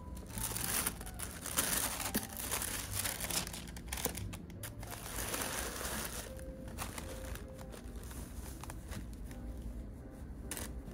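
Tissue paper crinkling and rustling as it is folded back in a shoe box, with the heaviest rustling in the first couple of seconds and again around the middle. Near the end it turns to a lighter rustle as a fabric dust bag is handled.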